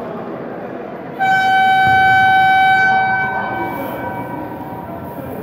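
Sports-hall timer horn sounding one long steady note for about two seconds, starting abruptly about a second in, then dying away in the hall's echo: the final horn ending the futsal match. Players' voices and hall noise carry on underneath.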